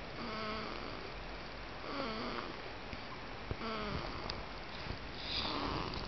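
Newborn baby snoring in her sleep: four short, squeaky, pitched snores, one every couple of seconds.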